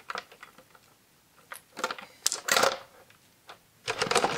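Strung beads clicking and rattling against each other as fingers handle them and work them along their thread. Scattered clicks, a short cluster about two seconds in and denser clicking near the end.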